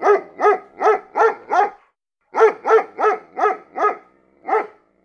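A dog barking in quick runs: about five barks in a row, a pause of under a second, five more, then single barks.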